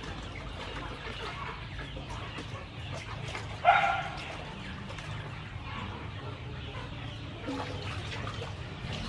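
Domestic chicken clucking, with one loud call a little under four seconds in and a few fainter clucks around it.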